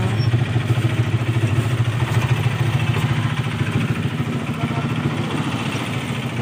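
A small engine idling steadily close by, a low, fast, even putter.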